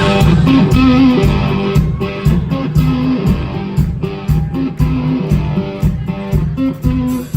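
Live blues-rock band playing an instrumental intro: a repeating electric guitar riff over bass and a steady drum beat.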